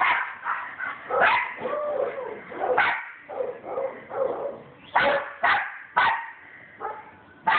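Dogs barking in sharp, separate barks about seven times at irregular intervals, with whining and yips in between. It is alert barking at a fence, at something on the other side.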